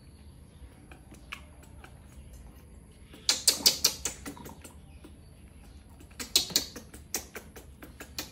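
Pet macaques drinking from milk bottles, making two bursts of quick, sharp clicking and smacking noises a few seconds apart.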